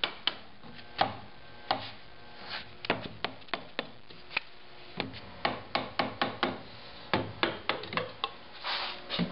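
Sharp, irregular wooden knocks and clicks as putty knives are worked in a glued chair joint and the crest rail is pried loose from its dowel, with a brief rub near the end.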